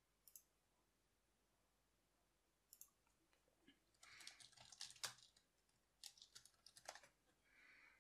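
Faint typing on a computer keyboard: a few scattered key clicks, then two quick runs of keystrokes about four and six seconds in.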